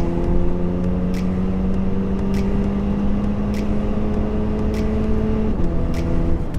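Cadillac ATS turbocharged four-cylinder with its muffler deleted, heard from inside the cabin with the windows up, pulling hard under acceleration. The engine note climbs steadily, drops suddenly at a gear change near the end, then climbs again. A faint tick sounds about every second and a bit.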